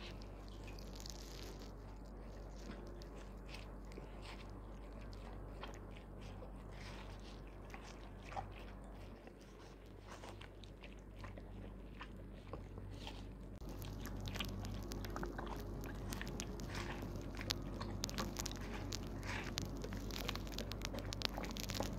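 Doberman biting into and chewing a slice of watermelon, a run of quick bites and chews that come thicker and louder after about fourteen seconds. A steady low hum lies underneath.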